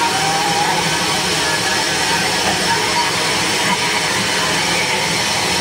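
Live amplified noise music: a dense, steady wall of noise through the PA, with faint wavering tones in the mix.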